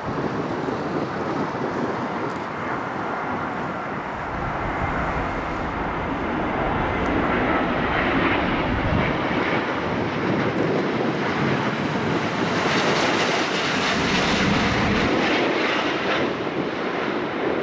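Airbus A350-900's Rolls-Royce Trent XWB jet engines on final approach: a steady jet rumble that grows louder as the airliner nears, with a hiss that is strongest from about twelve to sixteen seconds in as it passes closest.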